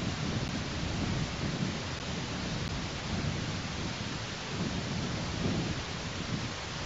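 Wind buffeting a nest camera's outdoor microphone: a low, uneven rumble that swells and eases in gusts over a steady hiss.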